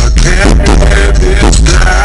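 Hip hop music played loud through a car audio system, with heavy, steady low bass from a Sundown Audio SA-12 12-inch subwoofer in a wooden enclosure.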